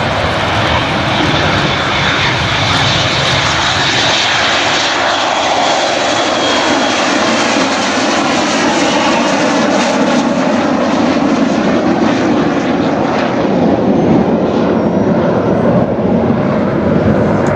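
Aircraft engine noise, loud and continuous, from a fixed-wing aircraft in flight.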